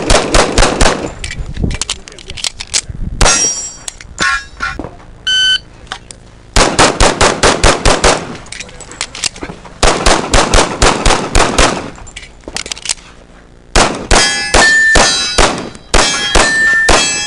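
Several fast strings of .45 ACP shots from a 1911 pistol. Steel targets ring with a clang when hit, several times in the second half.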